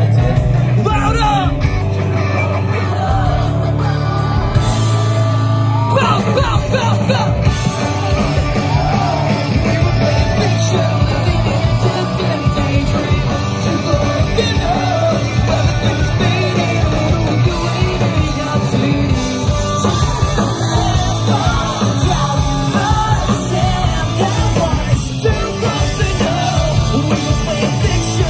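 Live pop-punk band playing loud: a lead singer over electric guitars, bass and drums. The drums and cymbals come in harder about six seconds in.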